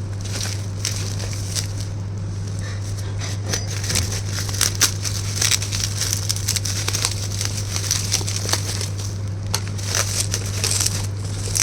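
Packaging crinkling and crackling as it is handled and unwrapped, with many irregular small clicks over a steady low hum.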